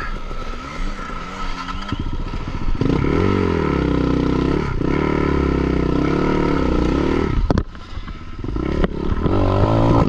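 Avantis 250 enduro motorcycle engine revving hard, its revs swinging up and down as the bike struggles up a slippery forest climb. The revs drop off sharply about seven and a half seconds in, then climb again near the end.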